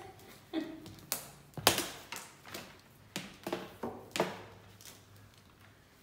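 A series of light clicks and knocks, about nine in four seconds, the loudest about a second and a half in. They come from a plastic handheld vacuum cleaner and its power cord being handled, and they die away near the end.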